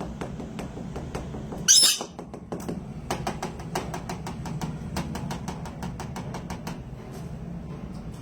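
Rainbow lorikeet giving one loud, harsh screech about two seconds in, among many quick sharp ticks, over a steady low hum.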